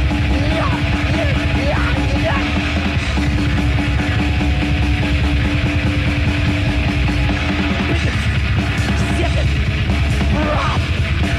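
Death metal band playing live: heavily distorted guitars, bass and fast drumming in one dense, loud wall of sound, with a held note through roughly the first eight seconds.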